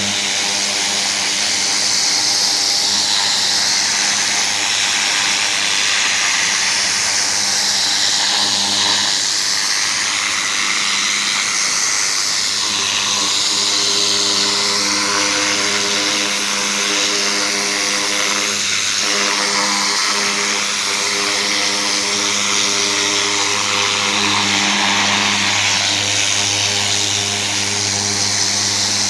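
Gas-engine pressure washer running steadily while a turbo nozzle blasts high-pressure water onto a surface, the spray's hiss swelling and fading as it sweeps back and forth.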